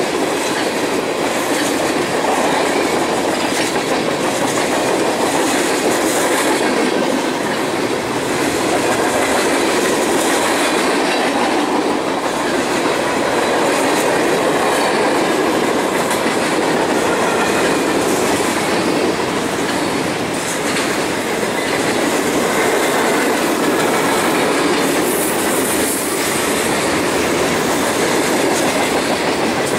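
Freight train of tank cars and flatcars rolling past, a steady, unbroken rumble of steel wheels on the rails.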